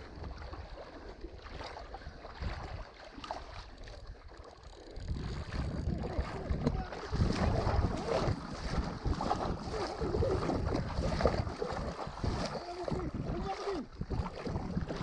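Wind buffeting the microphone over shallow seawater lapping and sloshing, growing louder about five seconds in.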